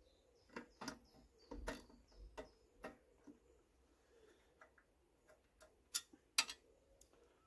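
Light, irregular metallic clicks and taps from a socket on a long extension bar working bolts into a Briggs & Stratton mower engine's shroud, with the two sharpest clicks near the end.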